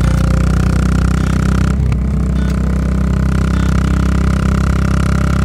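Yamaha SR400's single-cylinder engine running through a Goods tapered-cone slip-on muffler, a loud steady exhaust note with a brief break in the sound about two seconds in.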